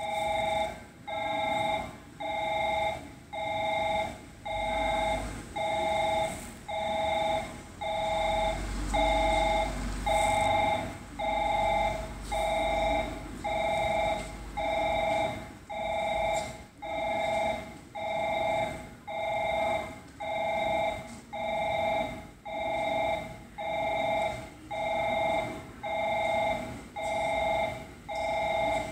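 Railway platform's electronic approach-warning bell sounding in steady pulses about once a second, warning of a train about to pass through the station without stopping.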